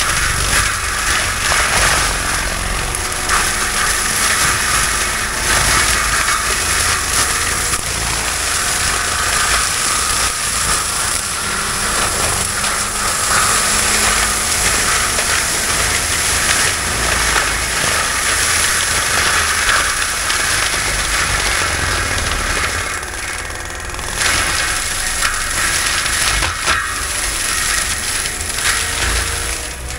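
Heavy machinery running steadily under load: a loud, even rushing noise over a low engine rumble, easing briefly about three quarters of the way through.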